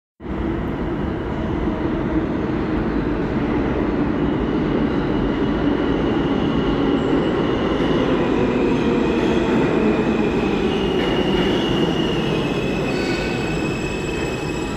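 Subway train running through an underground station: a steady, loud rumble of wheels on rail, with high, thin wheel squeal coming in about four seconds in and growing more layered toward the end.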